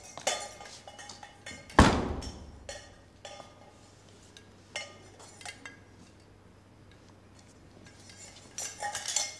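Metal kettle and pots hanging from a canvas backpack clinking and clanking against each other as the wearer walks, with one loud ringing clank about two seconds in and a flurry of clinks near the end.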